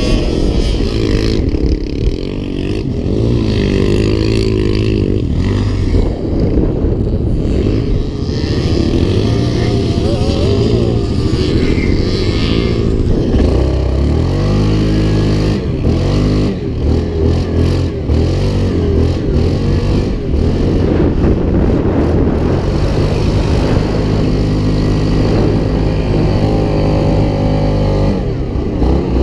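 Off-road vehicle engines running and revving, the pitch rising and falling several times as the machines accelerate and ease off, then holding steadier for the last few seconds.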